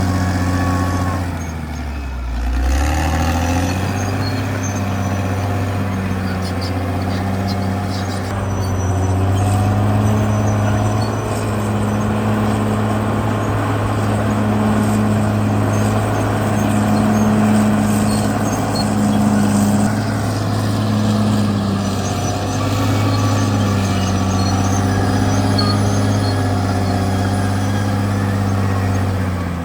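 Caterpillar D6R XL bulldozer's diesel engine running steadily at work, a low drone. Its note sags briefly about two seconds in and again at the very end.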